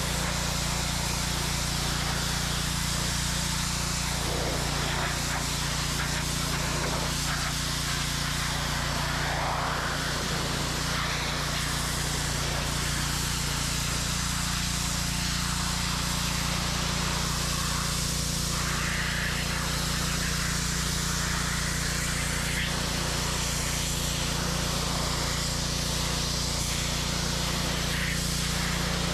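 Simpson gas pressure washer's Kohler engine running steadily under load, with the high-pressure water jet hissing from the wand as it sprays over a car's body and roof.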